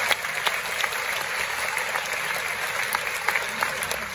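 Audience applauding, a steady mass of clapping that begins to thin out near the end.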